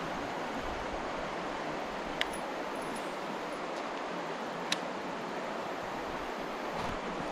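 Flowing river water rushing steadily, an even hiss of moving current, with two light clicks about two and four and a half seconds in.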